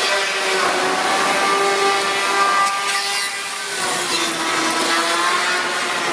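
Chainsaw engine running at high revs while cutting, its pitch wavering and sagging as the chain loads up.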